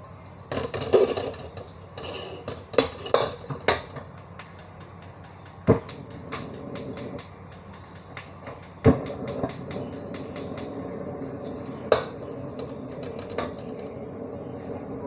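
Metal spatula scraping and clanking against a wok as food is stir-fried, irregular knocks over a steady sizzle.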